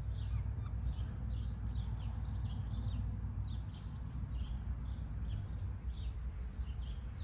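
A steady series of short, high chirps, each falling in pitch, about three or four a second, over a low rumble.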